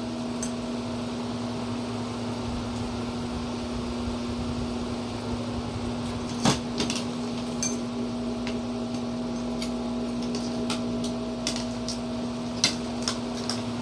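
A steady mechanical hum with a fixed low tone fills the room, with scattered small clicks and smacks of people eating duck meat off the bone by hand. Two sharper clicks stand out, about six and a half seconds in and near the end.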